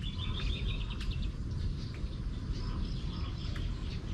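Small birds chirping: a quick high trill at the start and fainter chirps about two and a half to three and a half seconds in, over a steady low background rumble.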